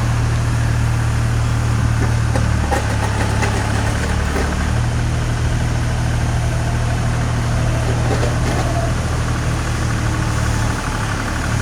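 Engine of a ZF-20 mini excavator running steadily. Its note shifts briefly about three seconds in and again near the end.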